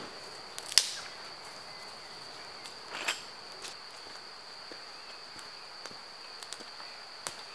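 A steady high insect trill, typical of crickets, runs throughout, broken by scattered sharp cracks of dry wood as a campfire is being lit: a loud crack about a second in, another near three seconds, and several faint ticks after.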